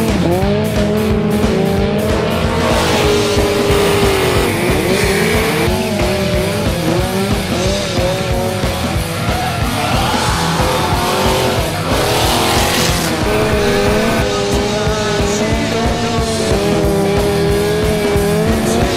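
Rock music with a steady beat laid over a Ford Mustang police car's engine revving and its tires squealing as it drifts through bends.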